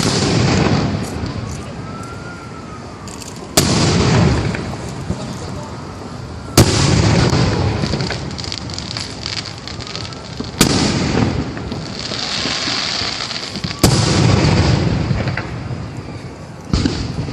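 Aerial fireworks shells bursting, a loud boom about every three to four seconds, each followed by a crackling, rumbling decay.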